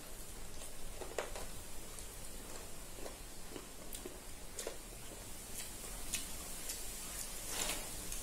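Close-up eating sounds of two people eating chicken curry and rice with their hands: chewing and lip smacks with a scatter of small irregular clicks, and fingers working food on steel plates.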